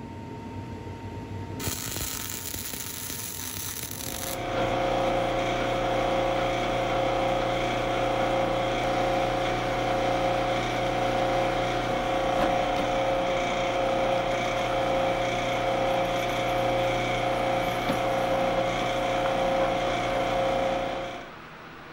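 Metal lathe running with a steady whine while it machines out the inside of a piece of tubing. A brief hiss comes first, and the lathe sound cuts off abruptly near the end.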